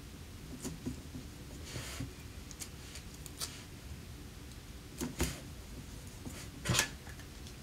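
Faint scattered rustles and soft clicks of clear Scotch tape being handled and pressed onto a red rubber stamp, with a brief scratchy tape sound near the end.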